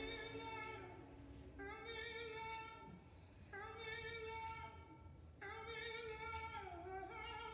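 Soft background music: a singing voice holding long, slow notes, four in a row of about two seconds each, the last dipping in pitch near its end.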